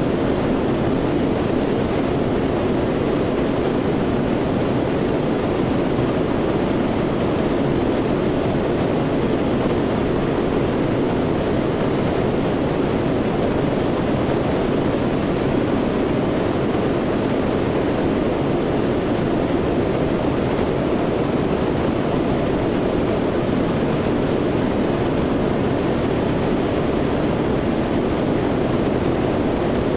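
Steady, unchanging drone of a Lockheed C-130 Hercules' four turboprop engines and propellers in cruise, heard from aboard the aircraft.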